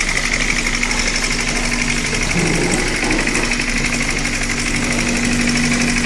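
Small electric water pump's motor running steadily with a fast, even buzz as it drives a thin jet of water through a hose nozzle.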